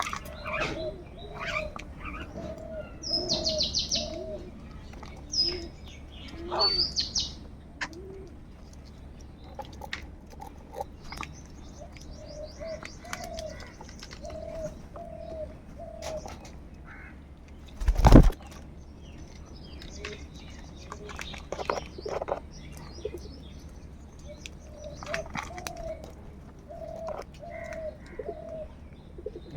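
Birds calling: runs of short, low, repeated notes at about two a second, over scattered high chirps from small birds. One loud sharp knock comes about two-thirds of the way through.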